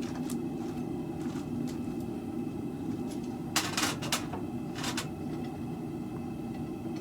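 Propane forge burner running with a steady roar, and four light clinks of metal on metal around the middle.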